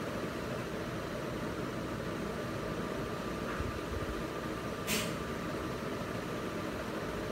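Aquarium filter running with a steady low hum and hiss. A brief, sharp hiss comes about five seconds in.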